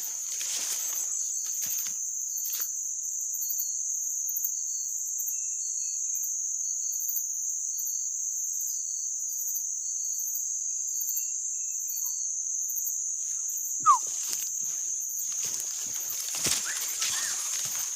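Steady high-pitched drone of forest insects, with faint chirps above it. A single short rising whistle sounds about fourteen seconds in, and there is rustling of movement through the undergrowth near the start and in the last few seconds.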